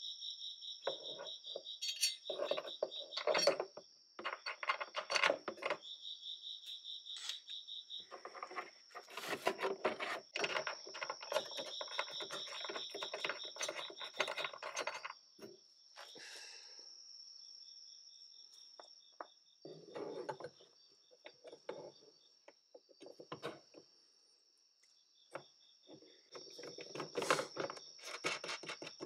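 Insects, likely crickets, chirp steadily in a high-pitched drone with an on-off trill. Over them come repeated bursts of metallic clinking and rattling as bolts, nuts and the mud-guard bracket are handled and fitted by hand.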